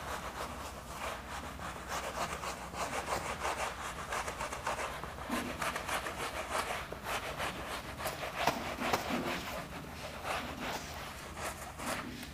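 A hand eraser rubbing across a whiteboard in quick back-and-forth strokes as the board is wiped clean.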